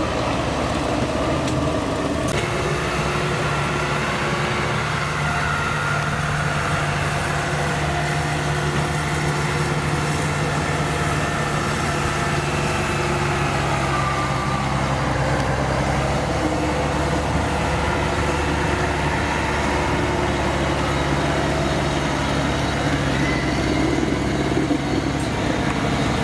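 Kubota tracked combine harvester's diesel engine running steadily as the machine drives through the field. For the first couple of seconds a tractor hauling a loaded trailer of rice sacks is running instead.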